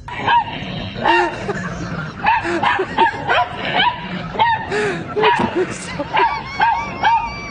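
Dog giving repeated short, high yips and whimpers, about one or two a second, with a longer wavering whine near the end.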